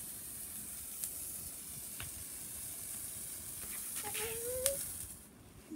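Handheld spray firework hissing steadily as it throws out sparks, stopping about five seconds in as it burns out.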